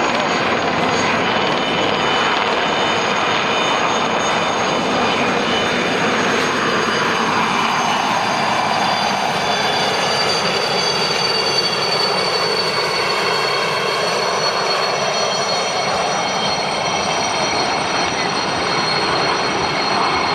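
A formation of aircraft flying over: a loud, steady engine roar with thin, high whining tones. The roar's tone shifts slowly in the middle as the aircraft pass overhead.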